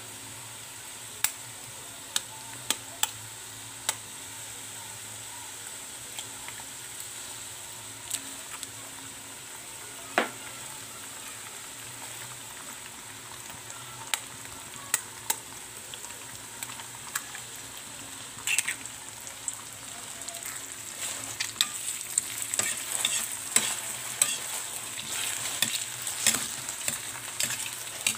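Sliced bitter melon (ampalaya) frying in oil in a metal pan: a steady sizzle with sharp pops of spitting oil. Past the middle the sizzle grows louder and more crackly as a raw egg goes into the hot pan.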